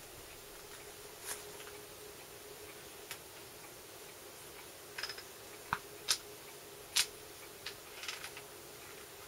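Rear-sight elevation knob of an ICS M1 Garand airsoft rifle being turned by hand, clicking through its detents in irregular single clicks, most of them in the second half.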